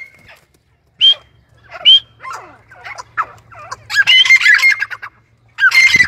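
Grey francolins calling: two short, high rising notes about a second apart, then a run of rapid, harsh notes that builds into a loud burst of calls near the end.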